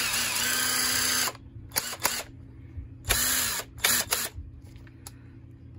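Lvdian cordless impact wrench run briefly with no load in two trigger pulls. The motor whirs up and winds down, first for about a second at the start and again briefly about three seconds in, with a few sharp clicks between.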